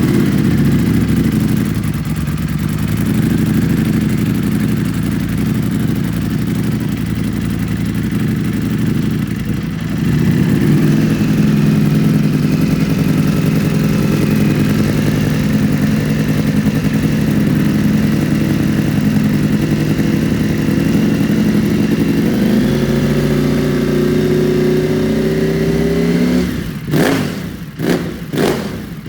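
Ducati Panigale V4 Speciale's 1103 cc V4 engine running through an Akrapovic full titanium racing exhaust: a loud, steady high idle just after start-up, its pitch stepping up slightly twice. In the last few seconds it is blipped sharply several times in quick revs.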